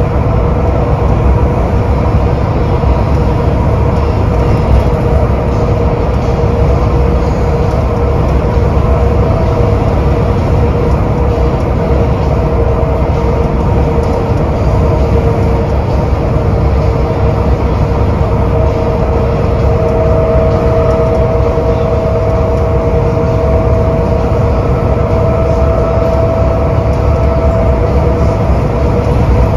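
Inside a 2001 Nova LFS transit bus cruising at highway speed: the steady rumble of its Cummins ISC diesel engine and road noise, with a steady whine running through it.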